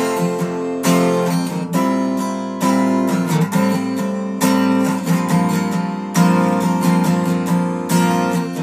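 Acoustic guitar strumming chords, with a fresh strum landing about once a second. This is the instrumental gap between sung lines of a song cover.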